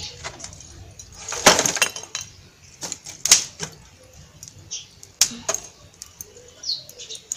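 Lumps of charcoal clacking against each other and the metal brazier as they are put in and arranged by hand to feed the cooking fire. There is a quick rattling run of clacks about a second and a half in, then a few single knocks.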